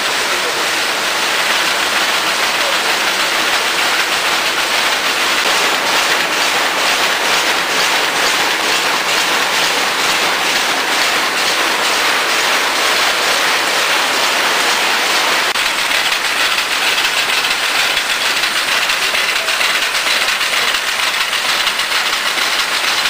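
Schiffli embroidery machine running, a loud steady mechanical clatter with a regular beat that is most distinct in the middle.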